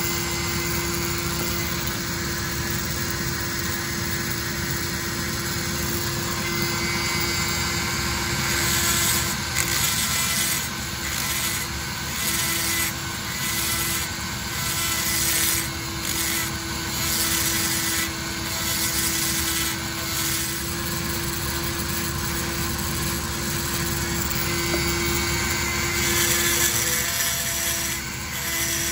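Handheld die grinder running with a steady whine while its bit grinds out a port in a Homelite Super XL-130 chainsaw cylinder. From about nine seconds in, the cutting noise comes and goes in short bursts about once a second as the bit is pressed into the metal and eased off.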